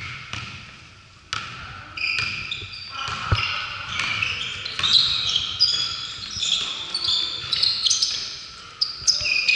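A basketball bouncing on a hardwood gym floor, a few separate bounces in the first seconds. From about four seconds in, many short high squeaks from sneakers on the wood as players cut and stop.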